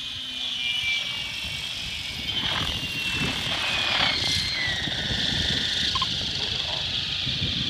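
Synergy 766 electric RC helicopter flying and coming down to hover low, a high whine over the rush of its rotor blades. The whine's pitch glides down a few times and is loudest about four seconds in.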